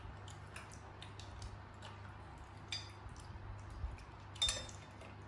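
Light clinks and taps of eating utensils against dishes, with a louder ringing clink about four and a half seconds in.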